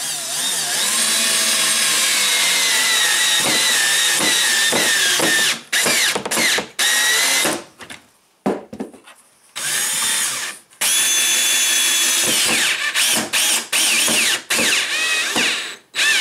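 Cordless drill driving pocket-hole screws through a long driver bit into the wooden spar joint. The motor whines in one long run of about five seconds, its pitch falling a little, then stops and starts in short bursts and another steady run, ending in a string of quick blips as the screws are seated.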